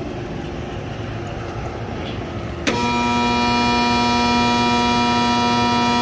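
A 480-volt belt-drive blower motor in a rooftop package unit, switched on, gives a loud steady electrical hum that starts abruptly a little under three seconds in and cuts off about four seconds later. The tech takes it for a weak motor; a failing blower relay passes only 309 V instead of 480 V on one leg.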